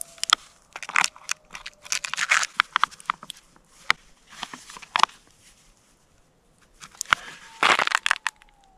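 Crinkling, crackling and clicking of a soft plastic squeeze-pouch water filter being handled, capped and squeezed, in irregular bursts. A faint, thin coyote howl can be heard behind it near the start and again, falling away, near the end.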